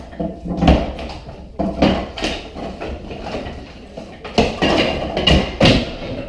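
A series of about seven sharp knocks and thumps at an uneven pace, a couple in the first two seconds and a closer bunch in the second half, like hammering or demolition on wood.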